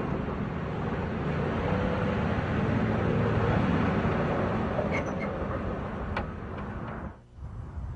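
A steady, low mechanical rumble like engines running, with a couple of faint clicks. It drops away sharply near the end.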